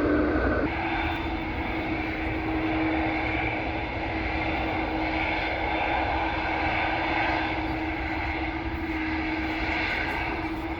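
Jet airliner's engines running, a steady drone with a low held hum that shifts slightly less than a second in.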